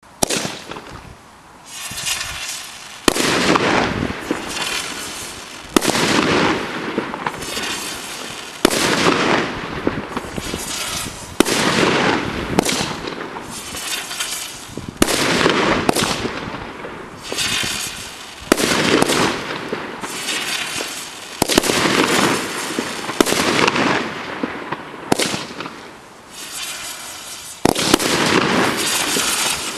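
'Silver Dragon' consumer firework going off shot after shot, about every three seconds: each a sharp pop followed by a couple of seconds of hissing, crackling spray that fades out before the next.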